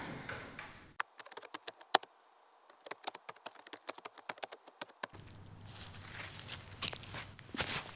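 Keyboard typing clicks, a quick irregular run of keystrokes lasting about four seconds, timed to text appearing letter by letter. Afterwards a low steady outdoor background with a few rustles near the end.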